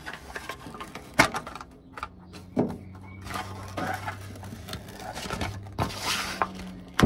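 Handling noise from an EVA foam decking sheet being shifted into place on an aluminium boat floor: rubbing and rustling with scattered light knocks, the sharpest about a second in and at the very end. A steady low hum runs underneath.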